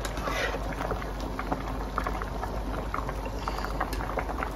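Rice bubbling in a pot of salted water at a rolling boil, a steady crackle of many small pops, while the rice is parboiled to about 80% done for biryani.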